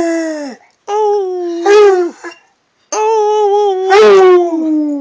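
Redbone coonhound howling: a howl trailing off, then two more long, loud howls, each held on one pitch and sliding down at the end, with short breaks between.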